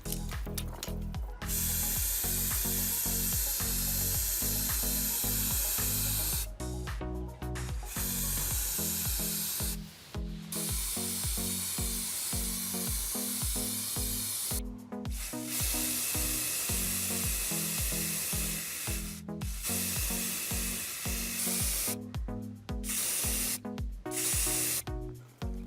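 Spray hissing in about six long bursts of a few seconds each, with short breaks between, typical of paint being sprayed onto restored parts. Background music with a steady bass beat runs underneath.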